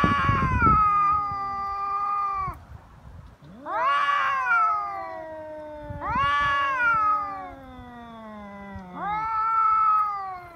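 Stray cats yowling at each other in a threat standoff: four long, drawn-out wails, each rising and then sliding down in pitch, with a lower growling tone gliding downward beneath the middle ones. This is the threatening yowl that comes before a cat fight.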